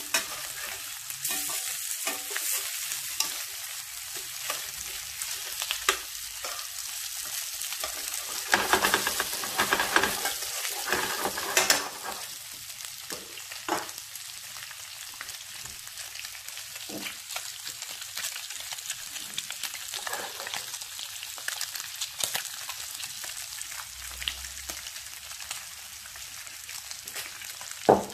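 Octopus tentacles sizzling in hot olive oil in a blue steel frying pan on high heat, a steady hiss. Metal tongs clack and scrape against the pan in the first half as the pieces are turned over.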